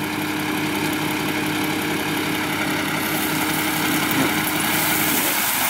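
Isuzu dump truck's diesel engine running steadily while the hydraulic hoist raises the loaded tipper body. A steady whine runs with it and stops about five seconds in, as a hiss in the highs grows.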